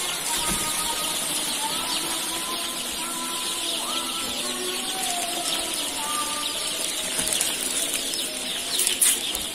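Dense chorus of many young joper chicks peeping continuously in a brooder, with a brief knock about nine seconds in.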